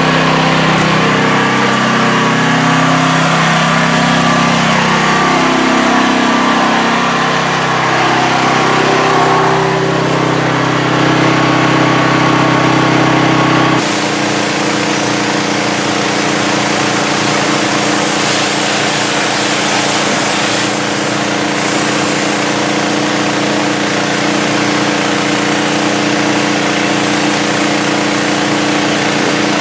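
Petrol engine of a Hot Boss 4000 PSI hot water pressure washer running, its pitch wavering during the first half. After a sudden change about halfway it runs steady under a loud hiss of spray.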